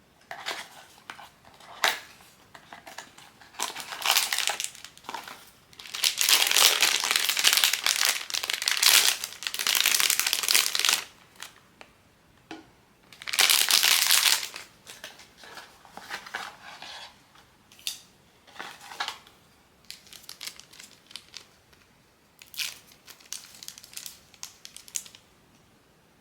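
Blind-box packaging being unwrapped by hand: plastic or foil wrapping crinkling and crumpling in bursts, with short clicks and taps between. The longest, loudest crinkling comes about six seconds in and again around thirteen seconds.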